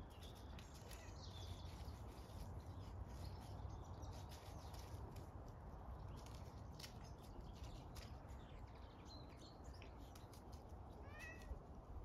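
Faint scuffling of a cat and a small long-haired puppy play-fighting on grass strewn with dry leaves: scattered light rustles and clicks over a low rumble. A few faint high chirps come about a second in, and a short falling call comes near the end.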